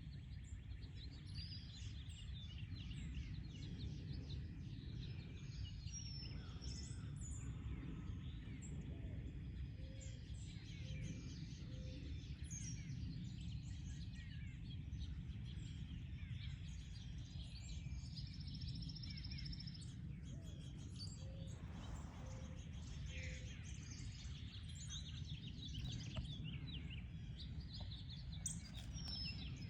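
Small songbirds chirping and calling again and again, short high notes and trills scattered throughout, over a steady low rumble of background noise.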